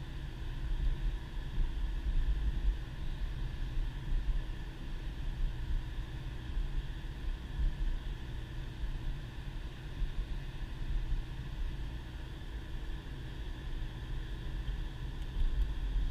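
Steady in-cabin drive noise of a 2010 Subaru Impreza moving along a snow-covered road: a low rumble of the engine and tyres that swells and eases slightly without a break.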